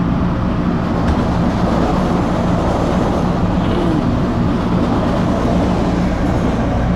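Interior running noise of an MBTA Red Line subway car creeping along at very low speed, held back by switching problems: a steady low hum over rumbling wheel-and-track noise.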